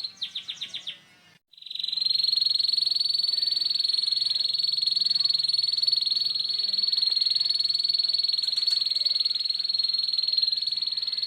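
Canary singing a harsh, very fast continuous 'ngeriwik' trill, a lure song for teaching young canaries. It opens with about six quick falling notes, breaks off for about half a second, then resumes as a steady, high buzzing trill.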